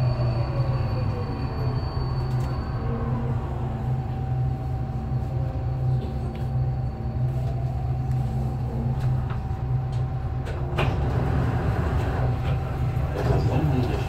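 Alstom Metropolis driverless metro train pulling out and running through the tunnel, with a steady low rumble and the whine of its electric drive. In the first couple of seconds the drive's tones slide, one falling and one rising, before settling into a steady tone. A single sharp click comes about 11 seconds in.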